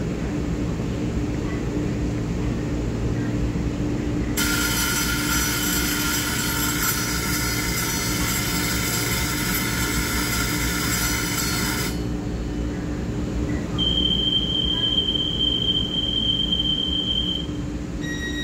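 A standing train and underground platform give a steady low rumble with a hum. From about four seconds in to about twelve seconds, a bright ringing departure signal sounds and stops abruptly. It is followed by one long high steady whistle-like tone of a few seconds, and a new beeping tone starts at the very end.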